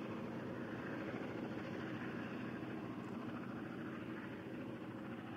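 Steady, distant running of diesel locomotives hauling a train away, slowly fading.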